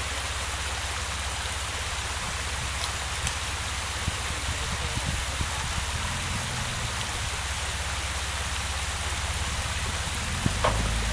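Steady rush of water from a creek waterfall, with a low rumble underneath and a few faint clicks near the end.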